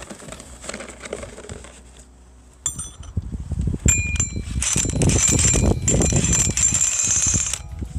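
Cordless impact wrench hammering a nut down onto the threaded rod of a steel sawmill leveling foot for about three seconds, with rapid rattling and a high metallic ring from the foot plate. Two sharp metallic clinks come just before, as the socket meets the nut.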